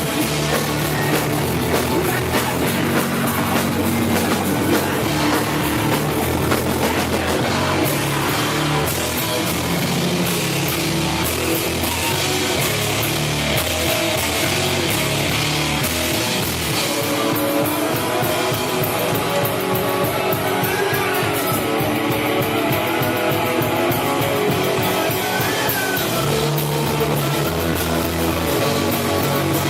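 Rock band playing a song: electric guitar and drum kit over a bass line, loud and continuous.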